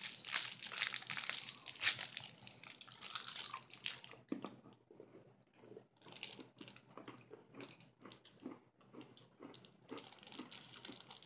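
A candy wrapper crinkling and rustling for the first few seconds, then quieter, repeated mouth sounds of a soft candy being chewed.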